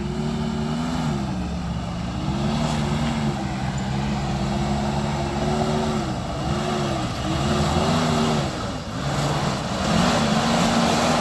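Off-road vehicle's newly turbocharged engine revving up and down under load, its pitch dipping and climbing again several times, over a steady rushing noise.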